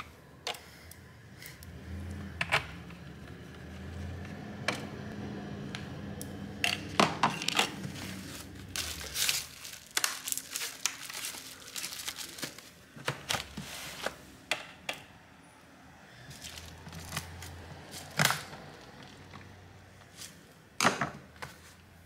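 A laptop being handled and set down on bubble wrap: plastic crinkling with a string of irregular clicks and knocks, the sharpest a few seconds in and near the end.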